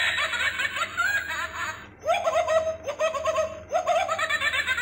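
A Hamleys Movers & Shakers Ziggles plush toy's electronic voice giggling in rapid, high-pitched runs of laughter, with two short breaks.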